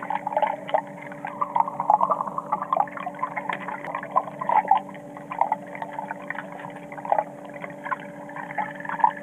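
Underwater sound picked up by a camera submerged in a swimming pool: a steady low hum under a constant wash of irregular crackling and clicking.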